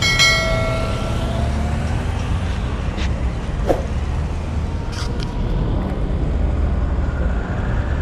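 Street traffic: the steady low rumble of passing cars and motorcycles, with a vehicle horn sounding for about a second at the start.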